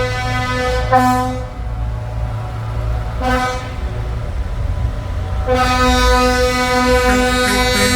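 Vehicle horns tooting: a short blast about a second in, another about three seconds in, then a long held blast from about five and a half seconds on. A steady low engine rumble runs underneath.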